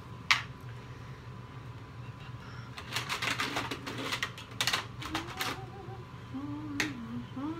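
Irregular sharp plastic clicks and taps: a utensil knocking against the plastic pitcher of soap batter. One loud click comes right at the start, a quick run of clicks follows around three seconds in, and single clicks come later.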